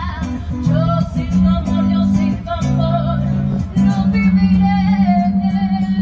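Background music: a song with a singing voice over guitar, with held bass notes that change about once a second.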